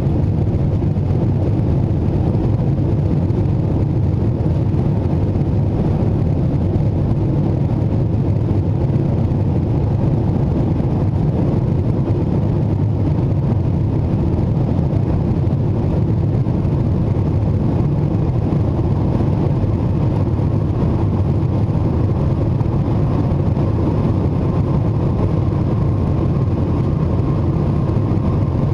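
Cabin noise of a Boeing 747-400 in its climb after takeoff: a steady low drone of the four engines and the rushing airflow, unchanging throughout.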